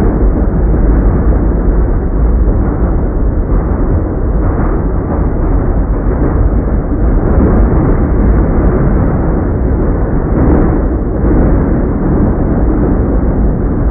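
NYC subway train running, heard from inside the car: a loud, steady rumble of wheels on the rails with rattling and clatter.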